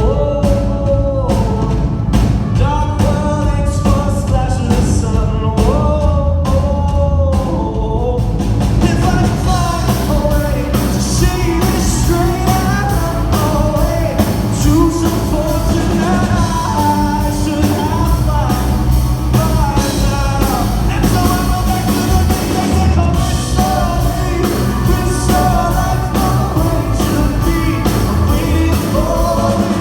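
Live pop-rock band performance with a male lead vocal singing over a steady drum beat. The full band builds up about eight seconds in, with cymbals coming in.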